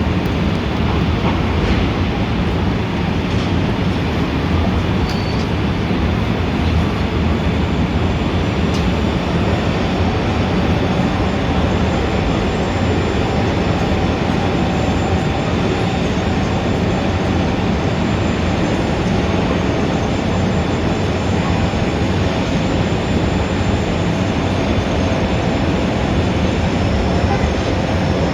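Dense city ambience: a continuous low rumble of traffic or trains, with faint high whining tones drifting over it.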